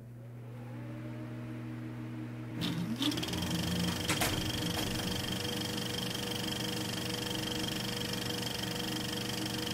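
Film projector starting up: its motor hum rises slowly in pitch over the first couple of seconds. A few sharp clicks follow, then it runs on with a steady whir.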